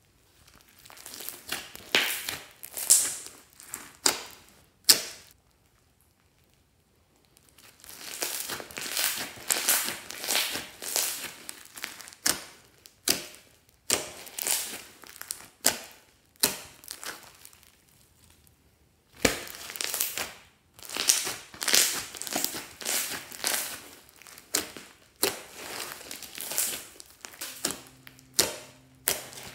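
Hands squeezing, stretching and folding glossy slime with small beads mixed through it: repeated short squelches, roughly one a second, broken by two pauses of a couple of seconds.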